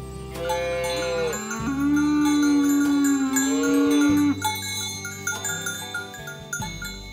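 A cow mooing in one long, drawn-out call, rising and falling in pitch and loudest between about one and a half and four seconds in. Background music with chime- and bell-like notes plays throughout.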